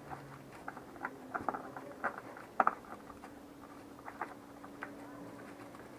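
Faint, irregular small clicks and scrapes of a new oil filter being screwed onto a Honda ST1300's engine by hand.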